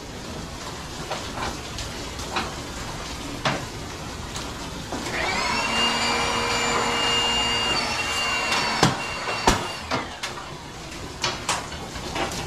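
Knocks and clanks of metal parts being handled on a workbench while transformers are broken down for scrap. About five seconds in, a power tool's electric motor spins up quickly, runs steadily for about three seconds, then winds down.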